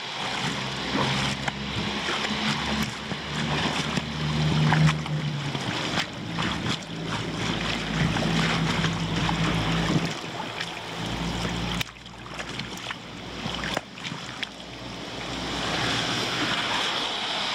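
Floodwater rushing steadily down a cleared roadside drain, with a low engine hum underneath that stops suddenly about twelve seconds in.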